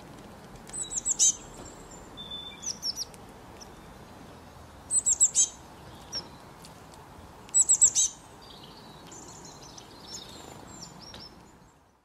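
Small songbird calling: four short clusters of three or four quick, high, falling chirps, then fainter twittering near the end, over a steady hiss of outdoor ambience.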